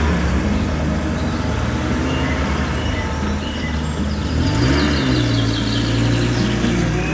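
Vehicle engine running, its pitch rising briefly about four and a half seconds in and then holding steady, like a rev, with bird chirps faintly behind it.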